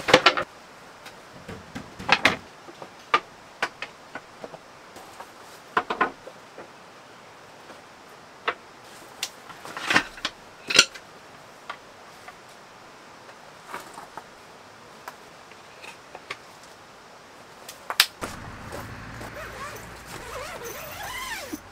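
Wooden flat-pack camp furniture knocking and clattering as it is unpacked and fitted together: scattered sharp knocks a few seconds apart with quiet between. Near the end a steady rustling with a few rising squeaks as the tent's canvas wall is handled.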